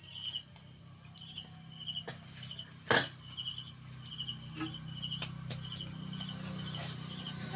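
Crickets chirping, a short pulsed chirp repeating about twice a second over a steady high insect hiss, with a low steady hum underneath. A few light clicks and one sharp knock about three seconds in.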